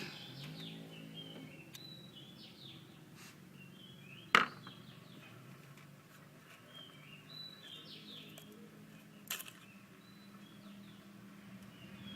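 A bird chirping in two short phrases of quick falling notes, several seconds apart. Two sharp knocks, the first much the louder, come about four and nine seconds in.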